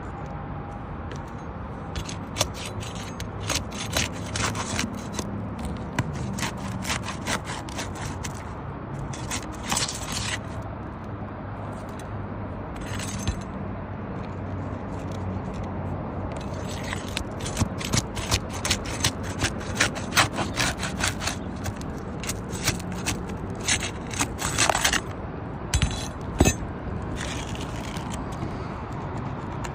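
Irregular bursts of scraping and prying at old 3-tab asphalt shingles and their roofing nails, as the nails holding the shingle are worked loose.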